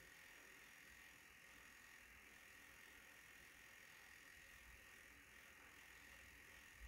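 Near silence: faint steady hiss with a thin high tone, and one soft low bump near the end.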